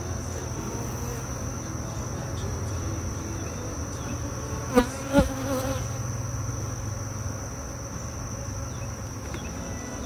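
Steady buzzing hum of a honeybee colony at an open hive, with a thin steady high tone above it. Two short, louder sounds stand out about five seconds in.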